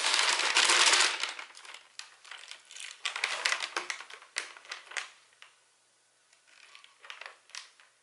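Crinkling plastic and foil packaging as an MRE food pouch is slid into the flameless ration heater's plastic bag and the bag is stood upright. The crinkling is loudest in the first second, then comes in scattered crinkles and clicks that die away about three quarters of the way through, with a few faint rustles near the end.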